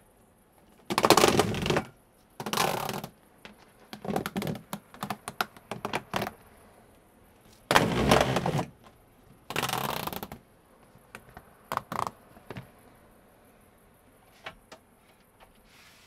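Flexible corrugated air-conditioner exhaust ducts being handled and stretched out, giving several separate bursts of crinkling and rattling, with scattered clicks.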